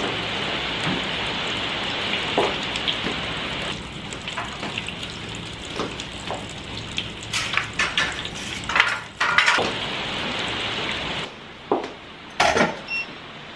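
Steady hiss of heavy rain, with small clicks, rustles and knocks of objects being handled over it. The rain hiss drops away suddenly near the end, leaving a few sharp clicks.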